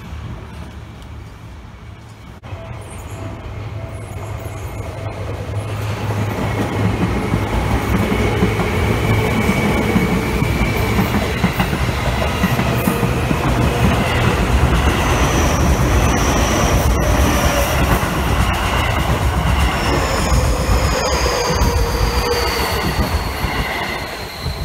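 Electric commuter trains, among them a yellow Seibu 2000-series set, passing close by. The sound is quieter for the first few seconds, then a loud, steady rumble of wheels on rail builds up about six seconds in. High squeals run over it, and a high whine falls slowly in pitch near the end.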